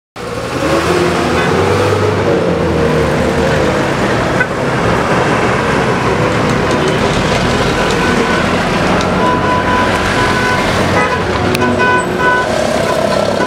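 Street traffic: motor vehicles running, with short car horn toots in the second half. The sound cuts in suddenly at the start.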